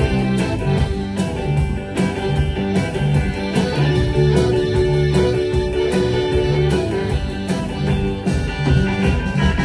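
A live band playing, led by guitar, over a bass line and a steady beat.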